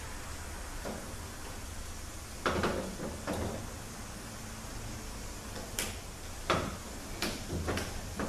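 A 48RE transmission valve body and its parts being handled and set down on a workbench: several short knocks and clicks, the loudest about two and a half and six and a half seconds in, over a steady low hum.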